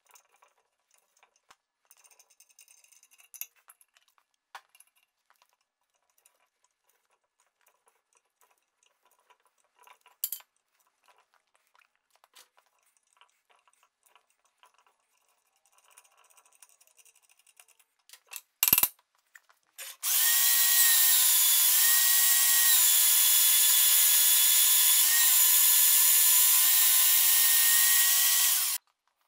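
Small vertical band saw cutting through a steel bar, a loud steady whine with slight dips in pitch as the blade loads, lasting about nine seconds before it stops. Before it, faint scattered clicks of metal hand tools and one sharp click.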